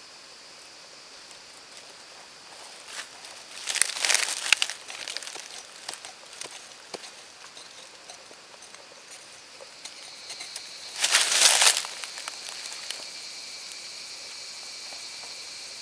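Dry, crumbly soil scraped and loosened in a small hole, first with a short-handled digging tool and then by hand, in two short bursts of gritty scraping about four seconds in and again near eleven seconds in.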